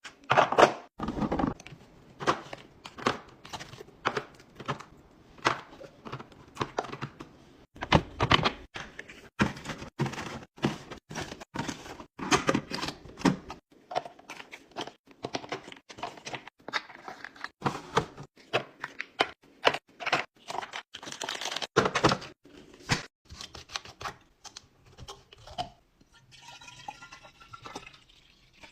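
A run of irregular knocks, taps and rubbing sounds, loud and close, thinning out about halfway through. A faint wavering tone can be heard near the end.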